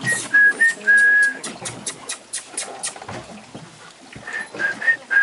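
A person calling monkeys with short, flat whistles, then a quick run of kissing lip-smacks, about six a second, then more short whistles near the end.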